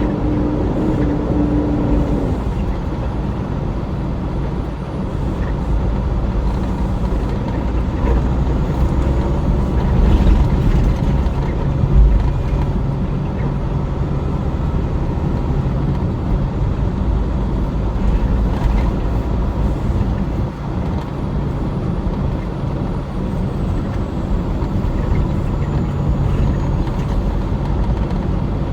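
Vehicle engine and road noise while driving, a steady low drone, with a single thump about twelve seconds in.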